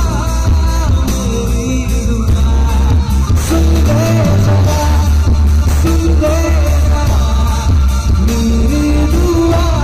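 Live band music played loud through a PA: a male singer singing a melody into a microphone over electric bass, electric guitar, keyboard and a barrel drum, with a heavy, steady bass.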